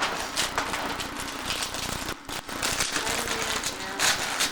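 Wrapping paper rustling and tearing as a present is unwrapped, in a run of uneven crackles with a brief gap about two seconds in.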